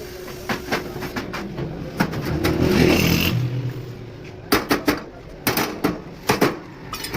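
Irregular sharp knocks, some in quick runs of two or three, with a motor vehicle's engine swelling up and fading away about two to three seconds in.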